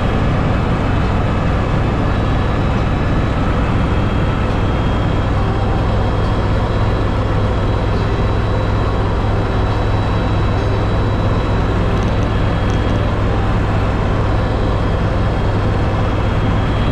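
Helicopter engine and rotor noise heard from inside the cabin: a steady, loud drone with a low hum and a thin high whine over it.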